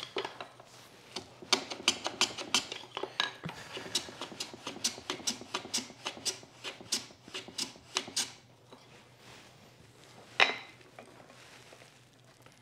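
Hand plane working on a shooting board, trimming the end of a wooden cleat to exact length: a quick run of short, sharp strokes, about three a second, then one sharp knock near the end.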